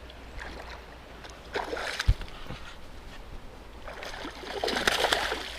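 Water splashing close to a kayak in short irregular bursts, with a single dull knock about two seconds in and a longer, louder splash near the end.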